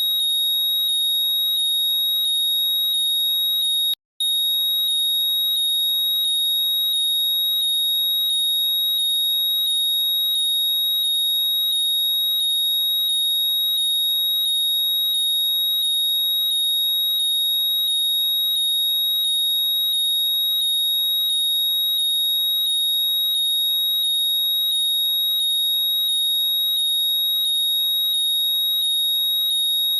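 Apple AirPods 'Find My' locating sound: short rising chirps repeating at an even pace over a steady high tone, loud and unbroken except for a brief cut-out about four seconds in.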